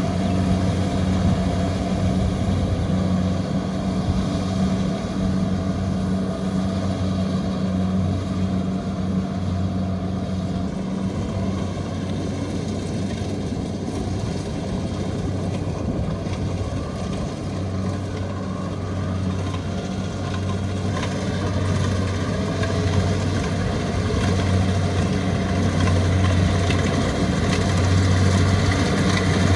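Kubota rice combine harvester's diesel engine running steadily as a constant low hum while the machine works. It grows a little quieter in the middle and louder again toward the end.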